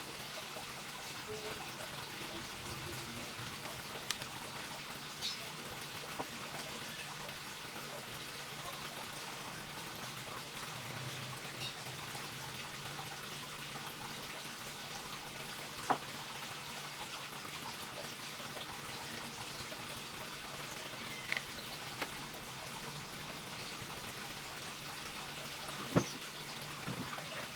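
A few faint, scattered clicks and taps over a steady hiss.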